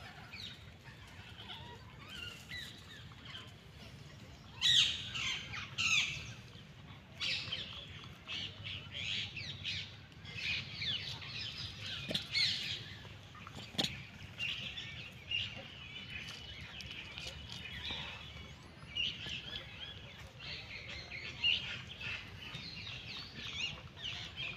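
Small birds chirping and chattering in rapid, repeated bursts of short high notes, busiest about five seconds in.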